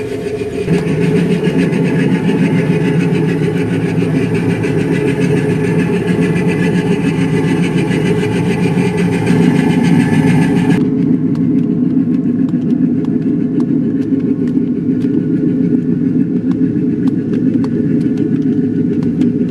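Small diesel engine of a miniature locomotive running steadily as the train rolls past close by. The higher-pitched part of the sound drops away suddenly about eleven seconds in, leaving the low rumble and light ticking of the cars' wheels.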